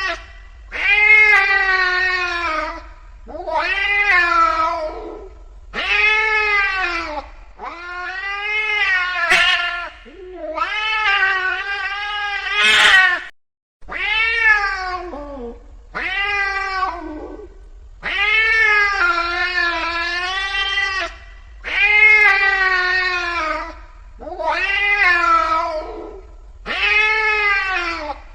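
An angry cat yowling in a string of about eleven long drawn-out calls, each one to three seconds long with short gaps between, the pitch bending up and down within each call.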